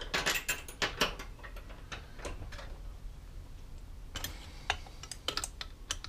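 Small metal sockets and hand tools clicking and clinking as they are picked up and tried for size. The clicks come in two clusters: one at the start and another from about four seconds in.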